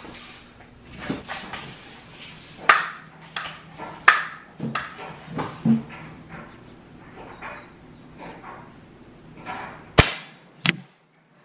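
Crosman pellet gun being handled and fired: a run of sharp clicks and knocks, then the sharpest crack about ten seconds in, with a second crack just after it.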